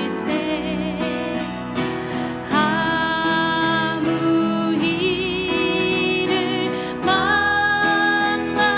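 Worship music: long sung notes with vibrato over keyboard accompaniment, with new held notes coming in about two and a half, five and seven seconds in.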